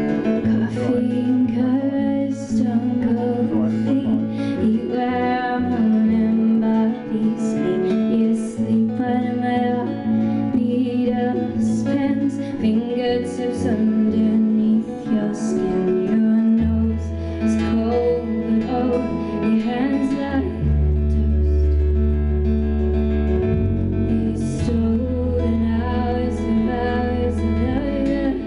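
Live band playing a song: strummed acoustic guitar with cello, drums and electric guitar, and a woman singing. A deep bass line joins about halfway through.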